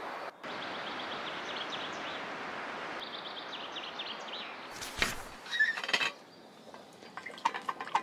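Outdoor forest ambience: a steady hiss with small birds chirping in quick short notes. About five seconds in a sharp knock and a few metal clinks cut in, followed by quieter light clicks.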